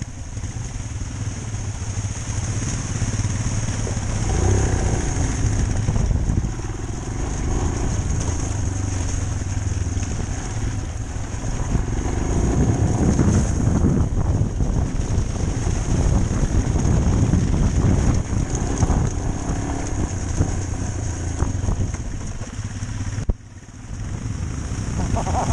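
Motorcycle engine running while riding a rough, slushy track, heard from the bike itself with wind noise on the microphone. The sound drops away briefly near the end, then comes back.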